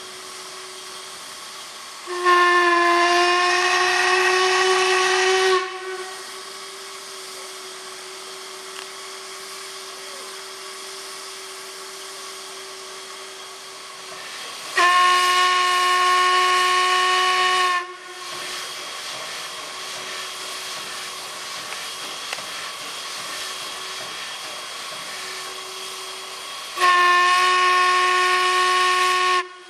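Steam whistle of a ČSD class 498.1 'Albatros' express steam locomotive blowing three long blasts of about three seconds each, roughly twelve seconds apart, each on one steady pitch. A steady hiss of steam carries on between the blasts.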